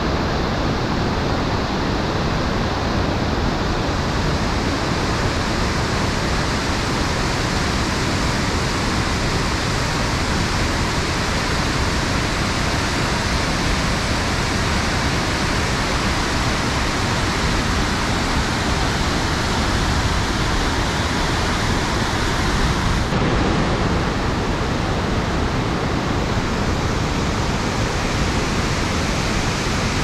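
Kegon Falls, a tall plunge waterfall, sending up a loud, steady rush of falling water. The highest hiss thins a little about two-thirds of the way through.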